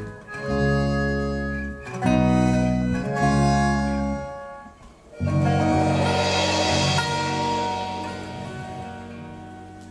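Live band of accordion, guitar, double bass and drums playing the song's closing chords: a few short, held chords with brief breaks, a moment's silence, then one final chord struck with a cymbal crash that rings and slowly fades.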